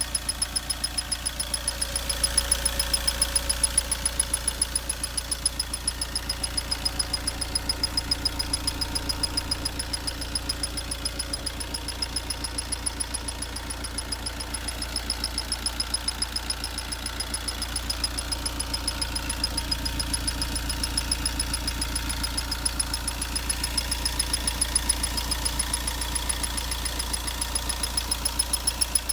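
Fiat Linea 1.3 Multijet four-cylinder turbodiesel engine running steadily, with a regular ticking over the engine sound: an unusual noise whose cause the owner does not know.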